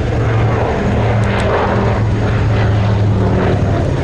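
Consolidated PBY Catalina's twin Pratt & Whitney R-1830 Twin Wasp radial engines running in flight: a steady, even, deep propeller drone.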